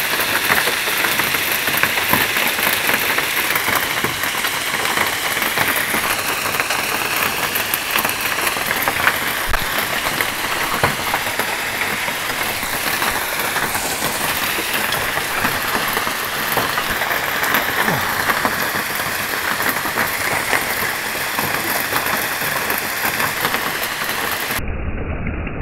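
A heavy hailstorm mixed with rain: a steady hiss thick with small clicking impacts of hailstones on the bus shelter roof and the pavement. About a second before the end it cuts abruptly to a duller, muffled rushing with a low rumble.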